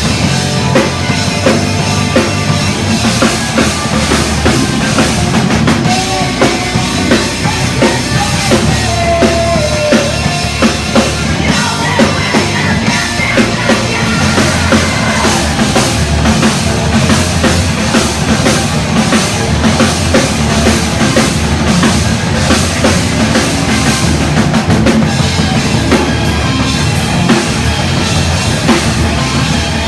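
Rock music led by a drum kit, with bass drum and snare hits packed close together over the rest of the band, loud and unbroken throughout.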